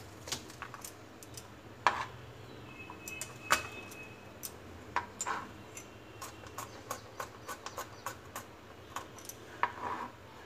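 Chef's knife chopping garlic cloves on a plastic cutting board: irregularly spaced taps of the blade striking the board.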